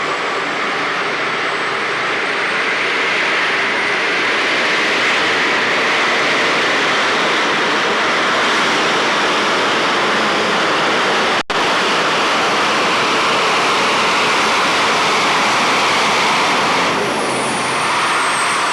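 Modified pulling tractor's engine running hard at high power under load, a loud, steady, continuous noise. It is cut by a split-second dropout about two-thirds of the way through and eases a little near the end.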